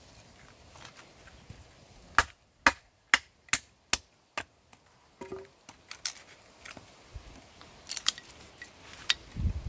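A SOG Tech Bowie knife chopping into wood: six sharp knocks about half a second apart, then a few fainter, irregular taps.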